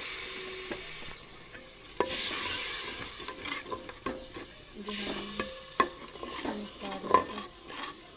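Fried onion-tomato masala sizzling in hot oil as water is added, the sizzle swelling suddenly about two seconds in and again about five seconds in before dying back. A steel spoon stirs the pot, clinking against the metal sides several times.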